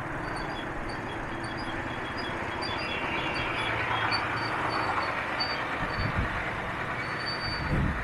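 Road traffic heard from a slow-moving motorcycle in a jam: the motorcycle's engine and the surrounding trucks make a steady, even rumble. Faint, short high chirps repeat throughout.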